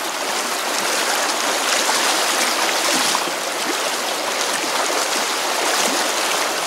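Shallow, fast-flowing river rushing and rippling over its bed: a steady rush of running water.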